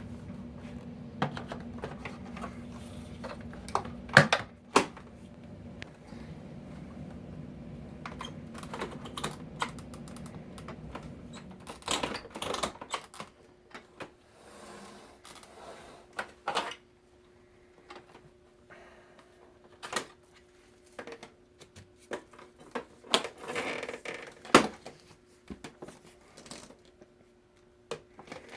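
Plastic parts of a Hoover Cyclone bagless vacuum cleaner being handled: irregular clicks and knocks, with a steady low hum under the first twelve seconds or so. The motor is not running.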